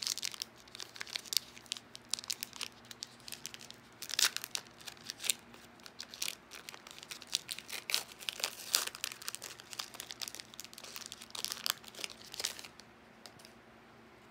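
Foil wrapper of a trading-card pack being torn and peeled open by hand, an irregular run of crinkling and crackling that stops shortly before the end.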